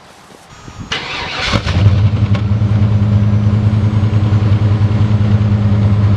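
Chevy 7.4-litre Vortec (454) big-block V8 in a 1997 Suburban 2500 cranked by the starter. It catches about a second and a half in and settles into a steady idle through a Magnaflow muffler.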